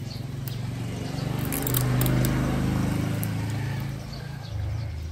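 A motor vehicle's engine hum swells, passing close, and fades again after a few seconds, with a few faint clicks of hands working on the graft.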